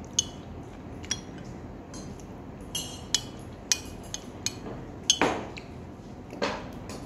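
Metal spoon clinking and scraping against a divided glass food container while scooping rice: irregular sharp clinks, with two longer scrapes in the second half.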